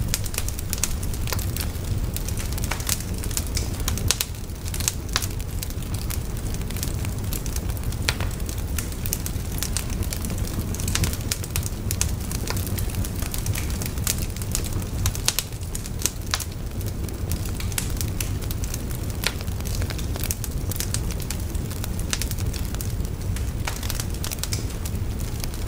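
Wood fire burning, crackling with frequent sharp pops over a steady low rush of flames.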